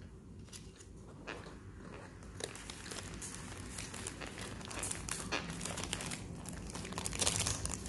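Paper sandwich wrapper crinkling as it is handled and peeled back from a chicken sandwich, along with biting and chewing. The crinkling grows busier and louder through the second half.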